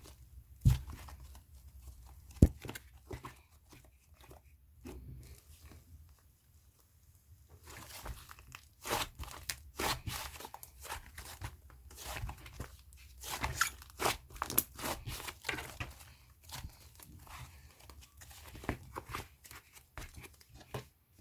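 Slime being squeezed, poked and stretched by hand, giving irregular wet crackling and popping clicks with two sharper snaps in the first few seconds. The crackling thins out for a few seconds and then comes thick and fast from about the middle on.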